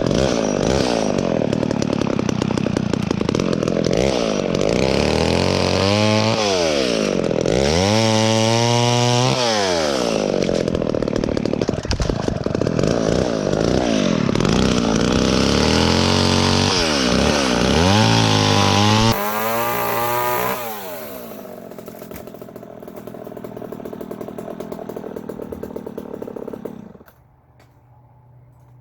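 Echo chainsaw cutting dead branches, revving up and dropping back again and again. About two-thirds of the way in it settles to a lower, steady run, and it stops near the end.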